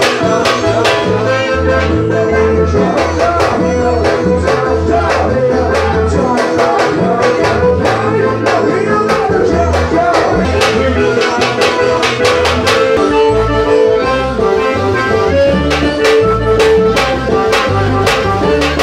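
Forró band music with a steady, evenly repeating drumbeat under held melody notes.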